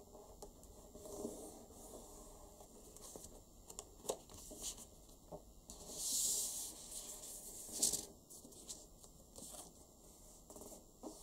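A sheet of origami paper rustling and crinkling as it is folded, creased and flattened by hand, with soft irregular clicks and rubs. A longer swish comes about six seconds in, and a sharp crackle just before eight seconds.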